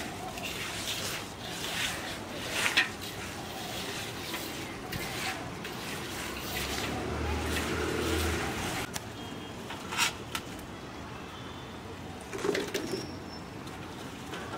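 Hands squishing and kneading a wet, oily spice mix for mango pickle in a large steel bowl, with a few sharp clicks against the metal.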